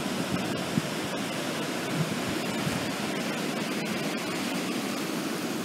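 Fast-flowing mountain river rushing over rapids, a steady, even rush of water.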